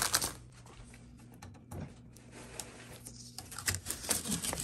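Blue shipping tape being peeled off a new gas stove's enamel top and plastic wrap: a dry crackling rip, loudest right at the start and again near the end.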